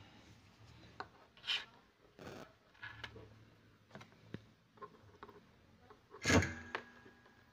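Steel tweezers handled against a tabletop and fingers: scattered small clicks and brief scraping and rubbing. A louder clink about six seconds in rings on briefly.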